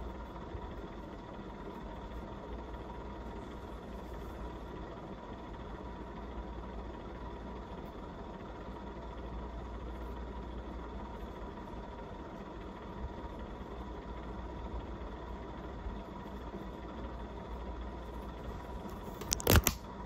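Casablanca Broadway Limited ceiling fan running at its top speed, a steady rush of air over a motor hum with a thin steady whine; its bearings are bad. Near the end there are a few sharp knocks.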